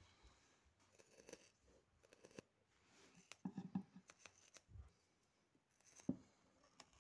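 Hand metal shears cutting through thick rubber conveyor belt: a series of faint snips and crunches as the blades close, with the sharpest click about six seconds in.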